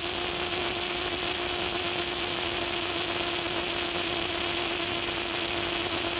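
Steady hiss with a constant low hum, the surface noise of an early sound film's optical soundtrack.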